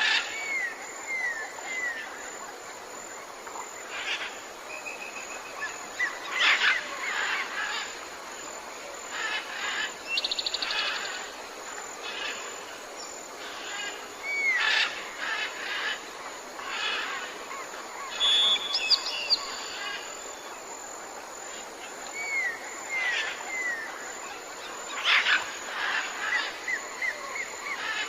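Several birds calling in a jungle ambience: groups of three short downward-slurred notes, a rapid trill and short whistled notes, over a constant high-pitched hiss.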